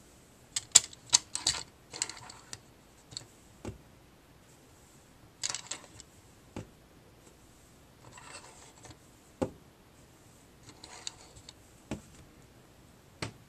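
Handling noises: scattered, irregular clicks and knocks with a few short stretches of rubbing, as a small toy car is turned over and handled close to the microphone.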